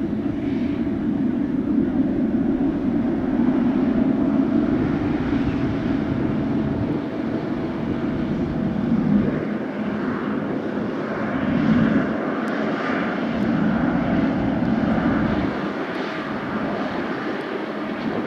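Boeing 777 freighter's GE90 turbofan engines running at taxi power: a steady jet rumble with a faint whine over it.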